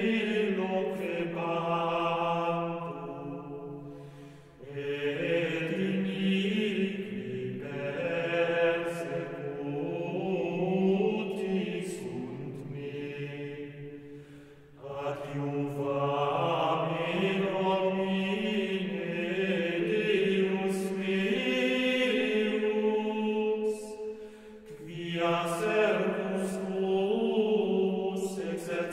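Voices singing medieval Latin plainchant in long melodic phrases, with short pauses between phrases about four, fourteen and twenty-four seconds in.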